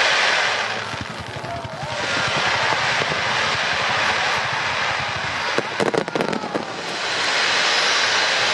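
Aerial fireworks display: a continuous rush of bursts and crackle, with a dense run of sharp crackles about six seconds in.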